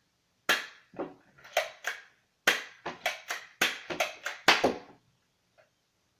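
Zooma toy dart blaster clacking and snapping, about a dozen sharp plastic clicks a few tenths of a second apart: the slide being racked and darts fired in quick succession.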